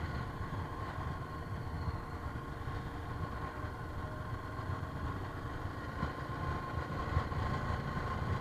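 Motorcycle engine running steadily while riding, over a steady low rumble, growing a little louder near the end.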